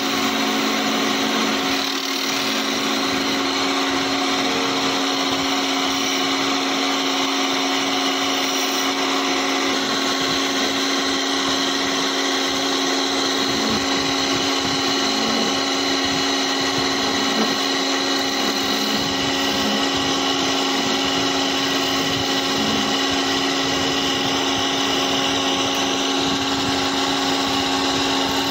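Electric wood lathe running steadily with a steady motor hum, while a hand-held chisel cuts the spinning wooden spindle with a continuous hiss.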